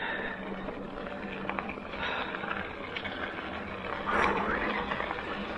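Electric mountain bike rolling over a dirt and gravel trail: steady tyre noise on the dirt with scattered small clicks and rattles from the bike, over a faint steady hum. The noise swells briefly about four seconds in.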